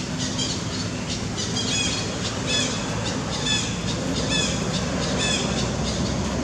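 Short, high-pitched squeaky calls, each with a quick bend in pitch, repeating about once a second over a steady background hiss.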